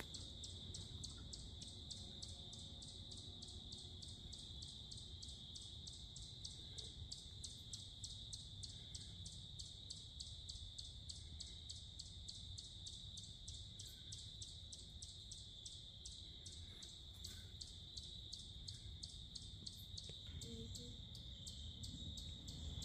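Faint chorus of evening insects: a steady high-pitched trill pulsing about four times a second, over a low outdoor rumble.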